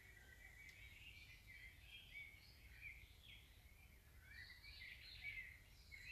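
Faint birdsong in woodland: short chirps and warbling phrases from several small birds, over a very low background rumble.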